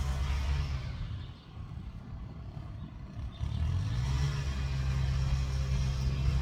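Motor vehicle engine running with a steady low hum, dropping away for a couple of seconds about a second in and then coming back.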